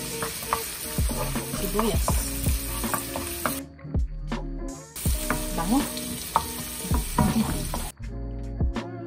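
Minced garlic and diced onion sizzling in hot oil in a nonstick frying pan, stirred with a wooden spoon that clicks against the pan. The sizzle cuts out briefly about three and a half seconds in and again near the end.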